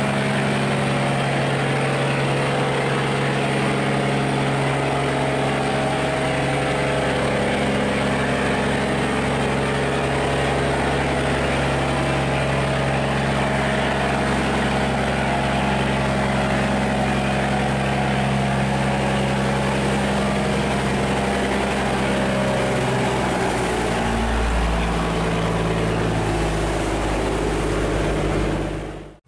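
Diesel engine of a loaded sand barge running steadily at close range as it pushes through a sluice gate, over the rush of fast-flowing water. Its low note shifts and deepens about three-quarters of the way through.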